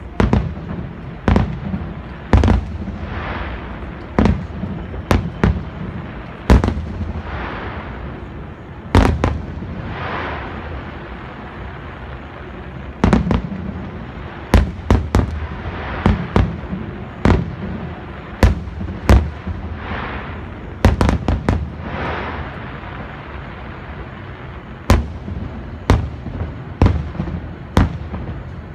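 Aerial fireworks bursting: a string of sharp bangs at uneven intervals, some in quick clusters, with low rolling echoes and crackle between them.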